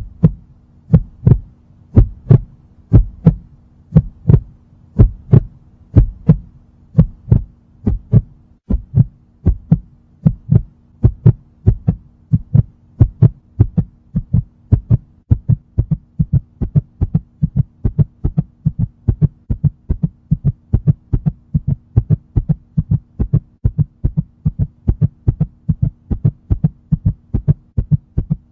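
Heartbeat sound effect: paired thumps at about one beat a second, quickening about a third of the way in and again later to about two beats a second, over a low steady hum.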